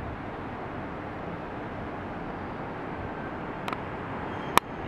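Steady city background noise with a hum of distant traffic. A couple of faint ticks come about three and a half seconds in, and a single sharp click, the loudest sound, comes near the end.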